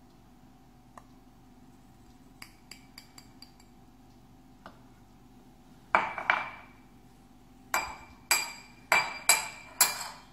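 Glass clinking and knocking as hard parts are handled: a few light clinks, then about seven louder knocks from about six seconds in, each ringing briefly.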